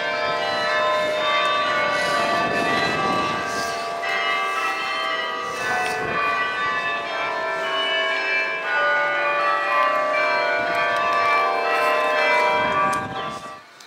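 Church bells ringing a peal: many bells strike in overlapping succession, each note ringing on. The ringing cuts off suddenly near the end.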